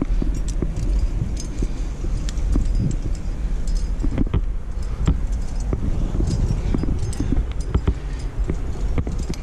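Metal climbing gear (carabiners and quickdraws on a harness) clinking and jingling in short irregular bursts as the climber moves up the rock, over a steady low rumble of wind on the microphone.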